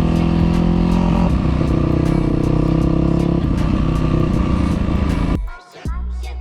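Yamaha WR450F's single-cylinder four-stroke engine running while riding, its note shifting a couple of times, then dropping out abruptly near the end before coming back quieter.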